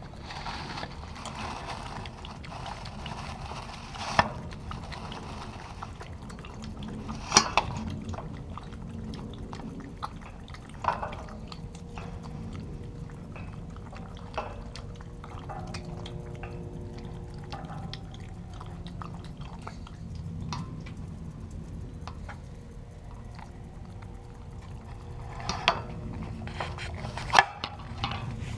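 Shiba Inu lapping water from a stainless steel bowl: a continuous run of small wet tongue splashes and clicks, with a few sharper, louder splashes.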